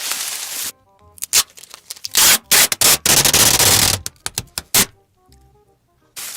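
Close-miked crunching and crackling in a quick run of sharp, loud bursts, with soft background music underneath.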